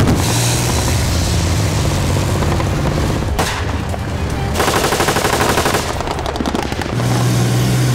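Rapid automatic gunfire during a military exercise, over a steady low drone of armoured vehicle engines.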